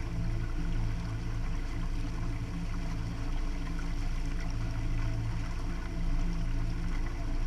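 Motorboat under way at a steady speed: a steady low engine drone with water rushing and splashing along the hull.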